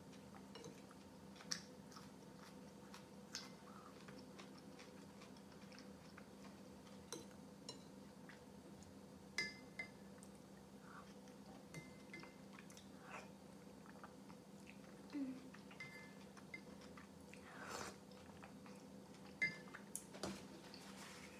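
Quiet, close eating sounds of someone eating kholodnik, a cold beet soup, with a spoon: scattered soft chews and mouth clicks, and now and then a light tap of the spoon against the ceramic bowl, over a faint steady hum.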